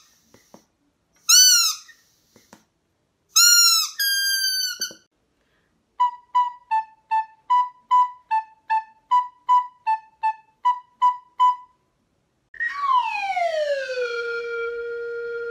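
A squeaky rubber squeeze toy gives three short squeaks that drop in pitch, then one held about a second. A soprano recorder follows with a run of about sixteen short detached notes, then a slide whistle glides downward and holds one long steady tone.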